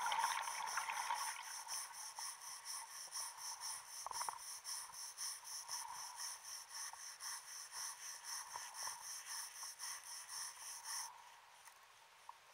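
Wire brush scrubbing concretion off a submarine propeller underwater: steady, rhythmic scraping strokes, a few a second, that stop suddenly near the end.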